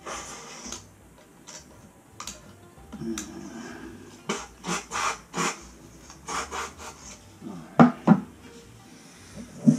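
Short hissing puffs from a can of compressed-air duster blowing concrete dust out of freshly drilled anchor holes in a toilet flange, with some scraping noise. Near the end there are two sharp knocks as the can is set down on the floor.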